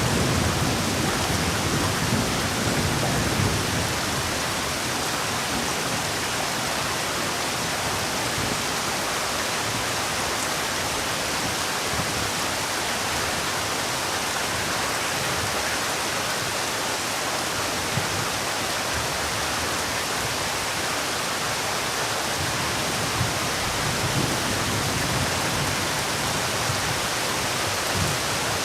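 Heavy rain falling in a steady hiss, with a low rumble of distant thunder in the first few seconds.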